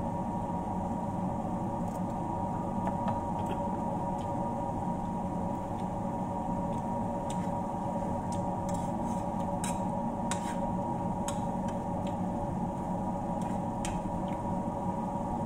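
Metal spoon clinking and scraping against a frying pan as crispy dried fish and peppers are stirred and tossed, a scatter of light clicks mostly between about seven and fourteen seconds in. Under it a steady mechanical hum runs throughout.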